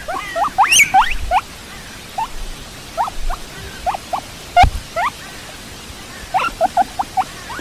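Guinea pig squeaking: short rising squeaks, several in quick clusters, with a single thump about four and a half seconds in.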